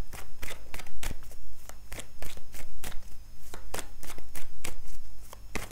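A tarot deck shuffled by hand, a quick irregular run of card slaps and flicks as the split deck is worked back together.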